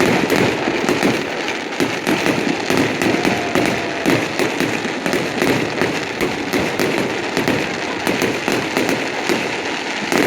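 Fireworks display going off without a pause: a dense, continuous run of rapid crackles and pops, many a second, overlapping one another.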